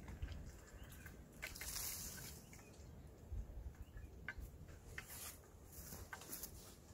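Faint handling noise from fishing rods and a spinning reel: scattered short clicks and light rustling as the rods are moved and adjusted.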